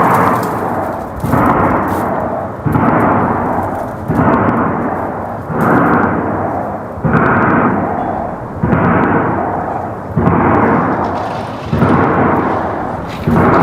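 A series of about ten loud booms, each starting suddenly and fading out, repeating evenly about every one and a half seconds.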